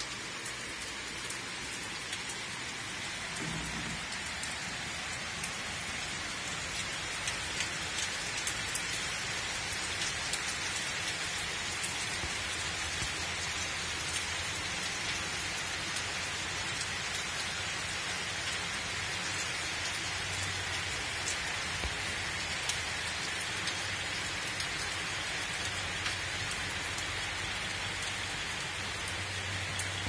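Steady monsoon rain falling on trees and grass: an even hiss with individual drops clicking through it.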